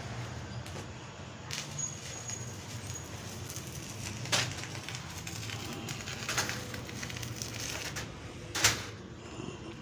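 Stick (arc) welding on a steel gate frame: the arc crackles and sputters steadily over a low hum, with a few sharper cracks, the loudest near the end.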